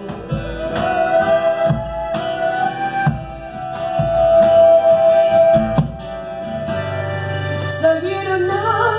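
Live acoustic band playing an instrumental passage between sung lines: strummed acoustic guitar and drum beats at a steady pace under a long held melody note that slides up at the start, with a wavering melody line near the end.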